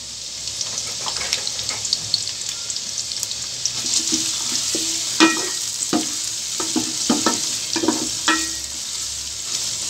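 Chopped onions sizzling in hot oil in a metal pot. From about four seconds in, a wooden spatula stirs them, knocking and scraping against the pot about twice a second.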